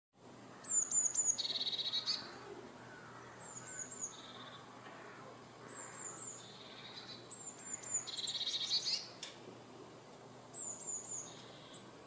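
Blue tit singing: about five phrases, each of three or four high, thin falling notes followed by a lower trill, repeated every two to three seconds.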